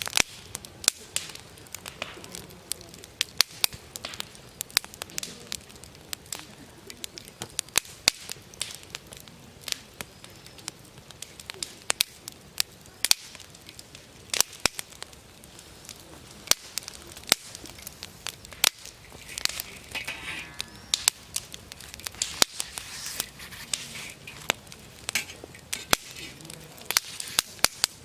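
Wood campfire crackling, with frequent sharp, irregular pops and snaps.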